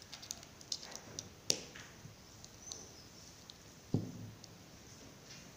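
Small clicks and handling noises of a 9-volt battery snap connector being pressed onto a battery and its wires being handled, with a sharp click about a second and a half in and a duller knock about four seconds in.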